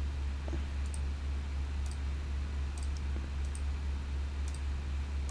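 Faint computer mouse and keyboard clicks, a few scattered about a second apart, over a steady low hum.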